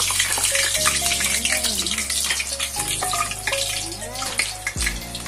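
A squash and corned beef nugget deep-frying in hot oil in a wok: a dense, steady crackling sizzle. Background music plays under it.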